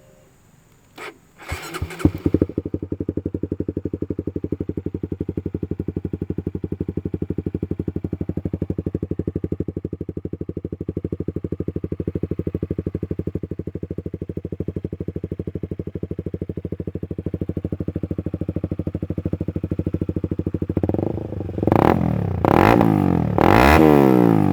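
Honda CB150R motorcycle's single-cylinder engine, fitted with an aftermarket PDK exhaust, starting about two seconds in and idling steadily, then revved in several quick blips near the end.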